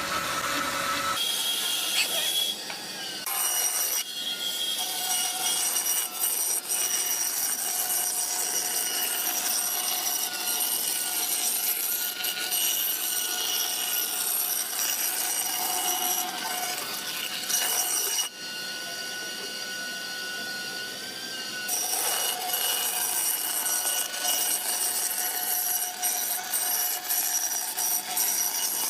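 Electric woodworking power tool running and cutting wood, with a steady high whine that wavers slightly under load and changes briefly about two-thirds of the way through.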